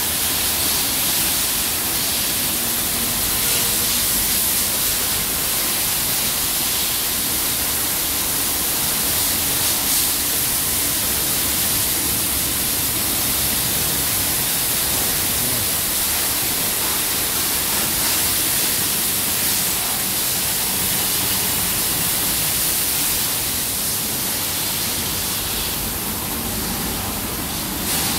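Automatic rollover car wash spraying water jets over a car: a steady, even hiss of spray.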